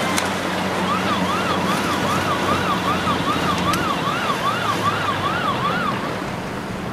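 Emergency-vehicle siren sweeping up and down about twice a second. It stops about six seconds in. Under it runs a steady hiss of wind and water with a low motor hum.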